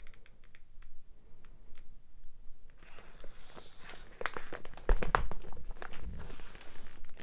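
Clear plastic sleeves on packs of scrapbook paper crinkling and rustling as they are flipped through on a shelf, with light clicks; busier from about three seconds in, with a couple of dull knocks as packs bump the shelf.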